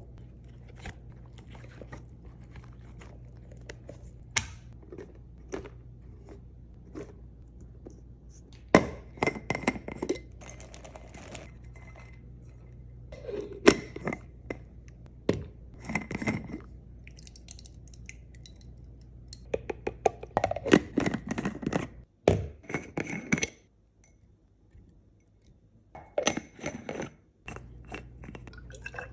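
Restocking and handling noises in irregular bursts: plastic packaging rustling and tearing, and items knocking and clinking as they are set down. A low steady hum sits underneath and drops out for a few seconds past the middle.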